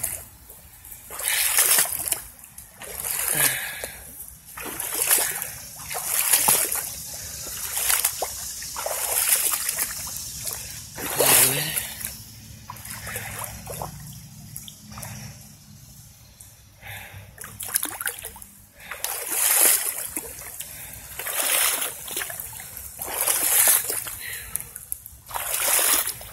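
Boots wading through shallow floodwater, a splash and slosh with each step, about one step every second or two.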